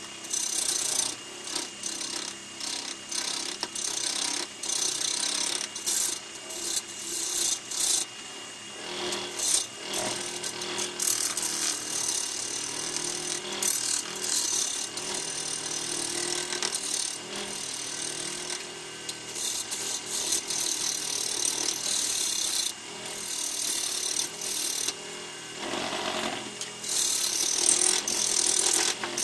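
A turning tool cutting a large jacaranda bowl blank spinning on a lathe: repeated bursts of hissing, scraping cuts as the tool is pushed into the wood and eased off, over the steady hum of the running lathe.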